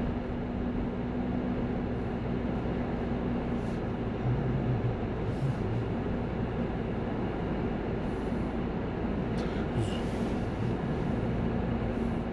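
Car driving, heard from inside the cabin: steady road and engine noise.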